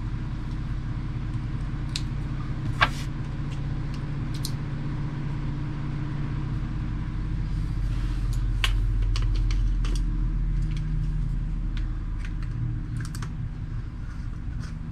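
Scattered light clicks and taps from a boat stern light and its pole being handled, over a steady low hum.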